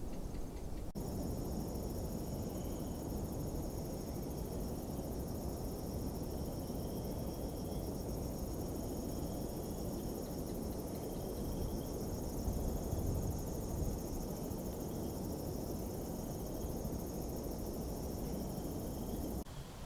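Crickets trilling steadily at night, a continuous high shrill, with a short chirp repeating every second or two, over a low background rumble.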